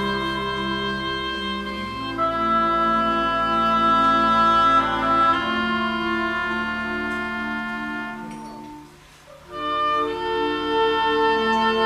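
Concert wind band of clarinets, flutes and brass playing held chords of film-soundtrack music that change every few seconds. About nine seconds in the music dies away almost to nothing, then the full band comes back in.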